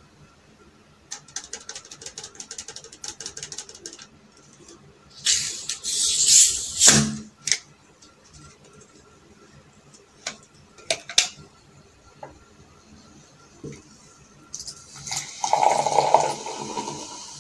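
A plastic soft-drink bottle being opened: a run of quick clicks as the cap is twisted and its seal breaks, then a loud fizzing hiss of escaping gas lasting about two seconds. Near the end, dark fizzy soda is poured into a glass, splashing and fizzing.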